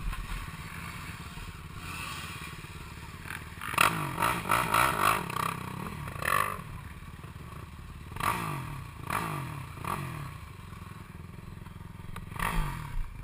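Quad (ATV) engine idling in a steady low rhythm, revved in several short bursts, the longest about four seconds in.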